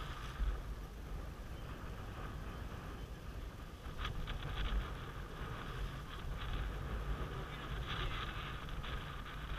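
Wind buffeting the camera microphone over water rushing along the hull of a J/80 sailboat under sail, swelling briefly about four and eight seconds in.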